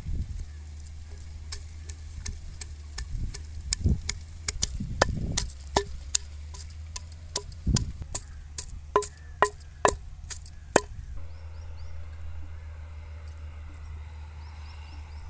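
Wooden pestle pounding garlic and ginger in a stone mortar: a run of sharp, irregular knocks with a few duller thuds, stopping about three-quarters of the way through, over a steady low hum.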